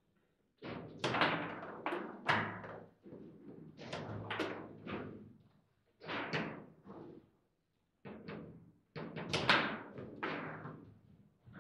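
Foosball table in play: the ball striking the plastic figures and the table walls, and the rods knocking, in irregular sharp knocks and thuds with short quiet gaps between them. The hardest hits come about a second in and about two seconds before the end.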